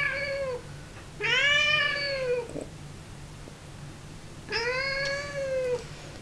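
Domestic cat meowing in long, drawn-out calls, each rising and then falling in pitch. One call is ending at the start, then two more follow, about a second in and about four and a half seconds in.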